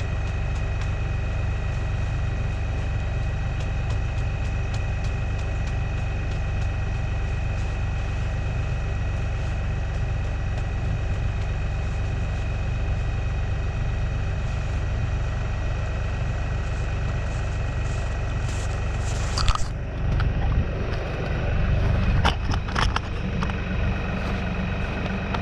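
LS compact tractor's diesel engine idling steadily, with a constant whine running over the low rumble. About three-quarters of the way through come a few sharp knocks and rustles over the engine.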